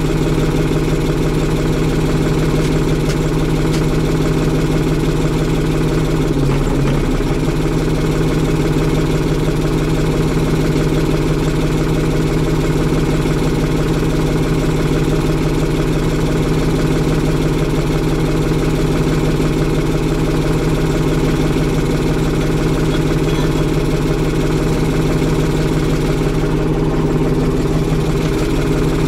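Tractor diesel engine running at a steady speed, heard from inside the closed cab as a constant low hum.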